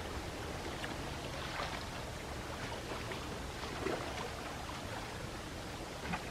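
Gentle sea waves lapping at the shore: a steady wash with many small splashes and trickles and no big breaking crash.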